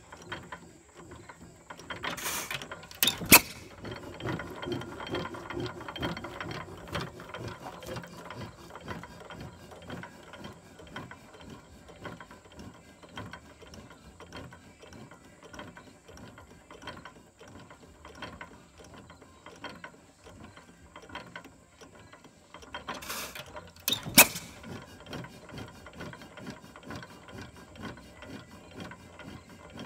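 6 hp Associated hit-and-miss engine running, a steady rapid clicking from its valve gear and governor as it coasts between firings. Loud, sharp bangs as it fires come twice: a few seconds in, and again about 23 seconds in.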